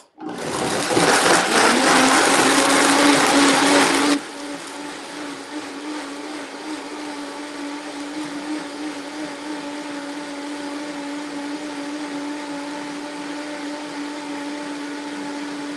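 High-speed countertop blender running, puréeing a thick sunflower-seed dressing. It starts loud, then about four seconds in drops suddenly to a quieter, steady whir with a steady motor hum.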